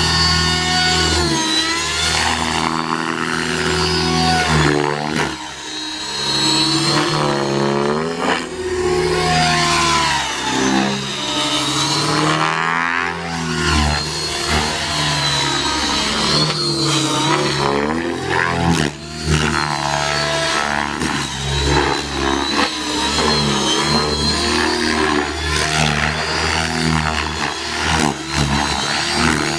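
Align T-Rex 600E electric RC helicopter flying aerobatics: its motor whine and rotor blade chop keep rising and falling in pitch as it swoops, flips and passes by.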